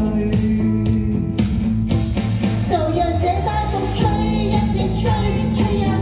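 A woman singing a Cantonese pop ballad into a microphone over instrumental accompaniment with a steady beat.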